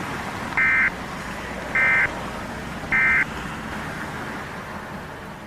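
Emergency Alert System end-of-message tones: three short bursts of data screech, about a second apart, over a steady hiss. They signal the end of the alert.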